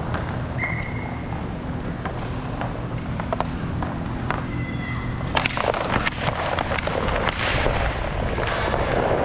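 Roller hockey play on a plastic sport-court floor: inline skate wheels rumbling, with the clack of sticks and puck against the tiles. The clacking grows into a dense clatter of knocks about five seconds in, after a faceoff, over two brief high steady tones earlier on.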